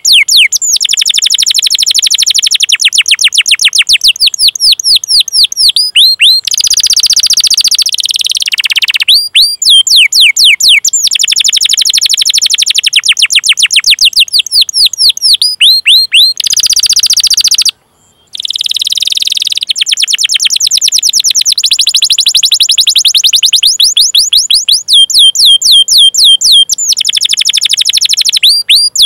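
Domestic canary singing: fast series of high, downward-sweeping 'cuit cuit' call notes alternating with dense rolling trills, with a brief break about two-thirds of the way through.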